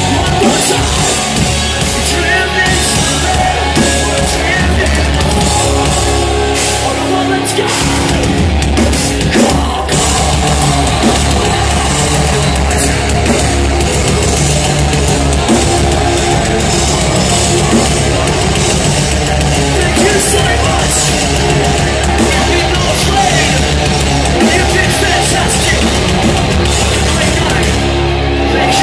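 Post-hardcore band playing live at full volume: heavy distorted guitars and a pounding drum kit, heard from within the crowd.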